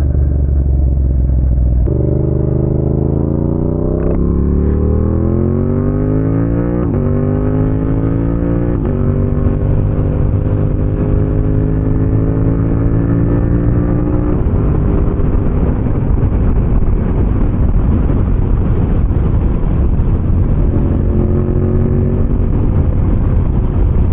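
Motorcycle engine pulling away: it runs steadily, then revs up with rising pitch about 2 seconds in, drops at upshifts about 7 and 9 seconds in, and settles into steady cruising with wind rushing over the helmet microphone.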